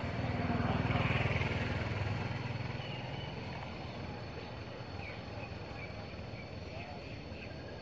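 A motor vehicle's low engine rumble swells about a second in and fades away, with a few faint high chirping calls later.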